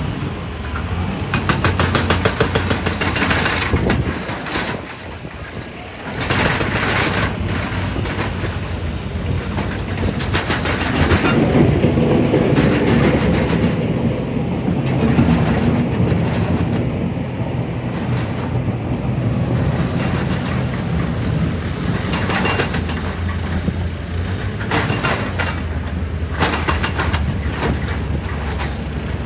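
Excavator working rock: a steady diesel engine hum under repeated spells of rapid clattering and crunching of rock and steel, with a short lull about five seconds in.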